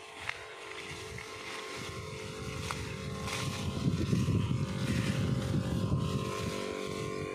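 Electric knapsack sprayer's pump motor running steadily with a constant hum while it sprays. A fluctuating low rumble swells about halfway through and becomes the loudest sound.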